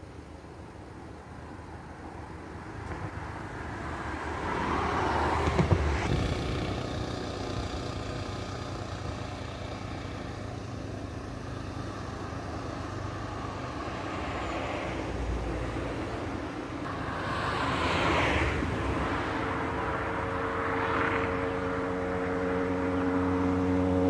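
Road traffic on a highway: several vehicles pass one after another, each swelling and fading. Droning background music fades in near the end.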